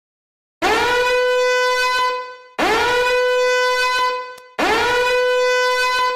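A horn blast played three times as a ringtone, each blast about two seconds long. Each one slides up at the start into a steady, buzzy held note.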